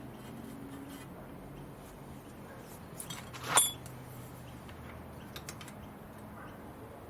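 A sharp metallic clink about halfway through, with a brief high ring, like a steel tool or part set down on metal, among a few light clicks over a low steady hum.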